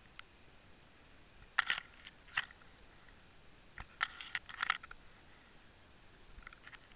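Short, sharp clicks and crunches picked up underwater, in irregular clusters: a few about a second and a half in, a louder run around four to five seconds in, and fainter ones near the end.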